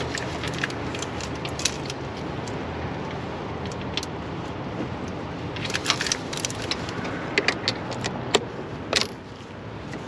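Light metallic clinks and clicks, several at a time about six seconds in and again near the end, over a steady rushing background noise.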